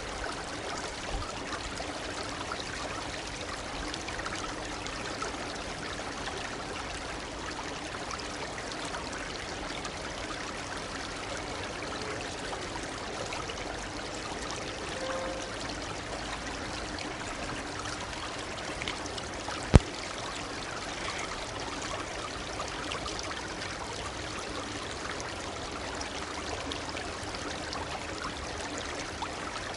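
A small shallow stream babbling steadily over stones. About twenty seconds in there is a single sharp click, louder than the water.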